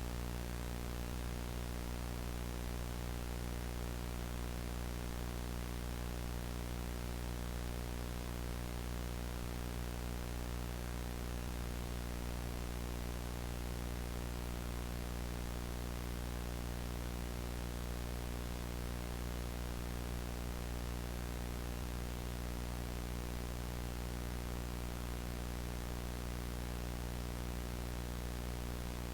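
Steady electrical hum with a stack of overtones under an even hiss of static, unchanging throughout: the dead-air hum and static of a simulated emergency broadcast between messages.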